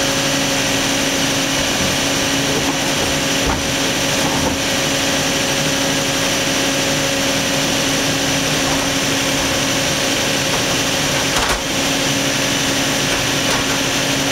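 Toyota 2UZ-FE 4.7-litre V8 idling steadily with a constant hum, its cam timing just corrected after a loose cam sprocket threw it out of time.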